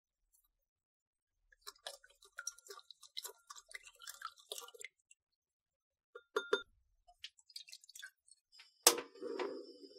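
A plastic spoon stirring liquid in a ceramic bowl, with quick irregular clicks and clinks against the bowl's sides. After a pause and a few more taps, there is one sharp knock near the end. Liquid then starts pouring from the bowl into a nonstick pan with a steady splashing.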